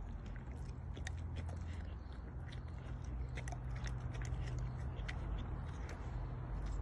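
A bull terrier's mouth licking and gnawing at a whole raw chicken: many small, irregular clicks and mouth noises, over a steady low hum.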